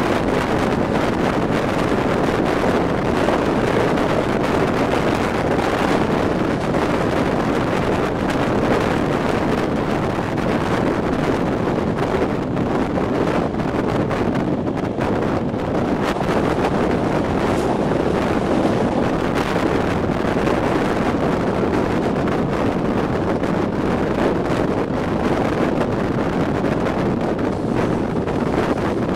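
Steady rush of wind buffeting the microphone at the open window of a moving passenger train, mixed with the train's running noise on the track.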